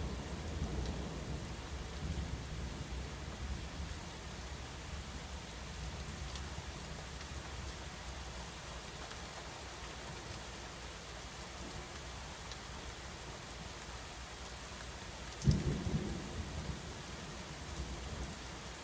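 Steady rain during a thunderstorm. Low thunder rumbles and dies away over the first few seconds, and a sudden, sharp thunderclap comes about three-quarters of the way through, rumbling on briefly.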